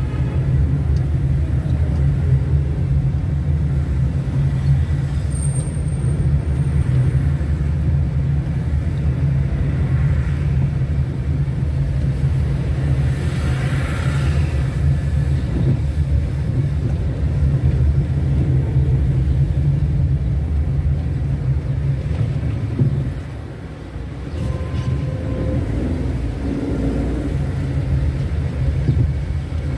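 Car driving in town traffic: a steady low rumble of engine and road noise, which falls off briefly about three-quarters of the way through.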